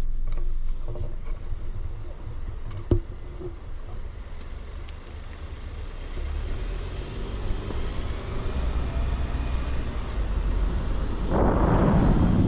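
Car driving on a paved road: steady low road and engine rumble. A single sharp click comes about three seconds in, and near the end wind starts buffeting the microphone.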